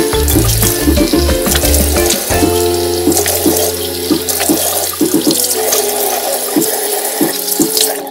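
A water tap running into a sink, a steady hiss, over background music with a bass line. The running water stops abruptly at the very end.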